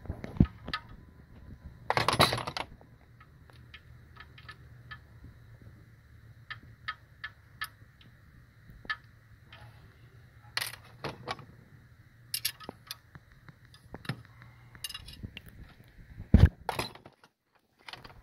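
Hand tools clicking and clinking on the steel rocker arms and lash adjusters of a Detroit DD15 diesel's valve train during valve-lash setting. Scattered single metallic clicks, with a denser rattle about two seconds in and a sharp knock near the end.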